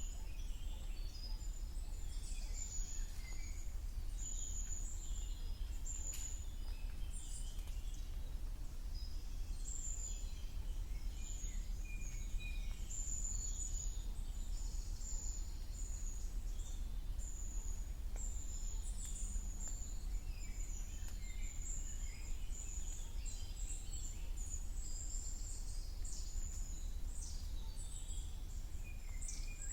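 Woodland birdsong in spring: several small birds calling, with repeated high, thin notes throughout and scattered lower chirps, over a steady low rumble.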